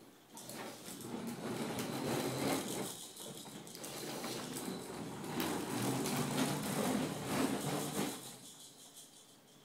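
Hard plastic wheels of a toddler's push-along activity walker rolling and rattling over a hardwood floor. The rumble starts about half a second in, is irregular with many small clicks, and dies away a little after eight seconds when the walker stops.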